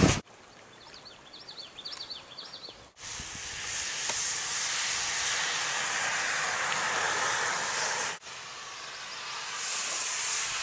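A bird singing a run of short, repeated chirping phrases, then a steady rushing noise that swells near the end.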